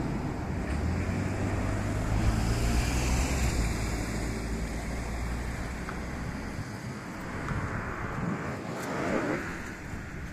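KiHa 54 diesel railcar hauling a trolley train, its engine running with a steady low hum over a rush of wheel and wind noise. The hum stops about six and a half seconds in, and a brief rush of noise swells and fades near the end.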